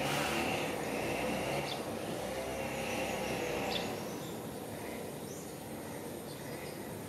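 Outdoor background noise: a steady low rumble that eases off about four seconds in, with a couple of short, faint high chirps.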